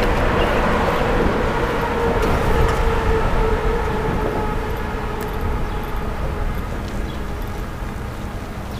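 Road vehicle rumble with a faint steady whine, slowly fading away as the vehicle passes.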